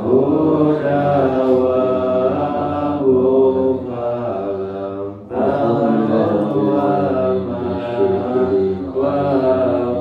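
Melodic chanting of an Islamic supplication, sung in long held phrases with a short pause about five seconds in.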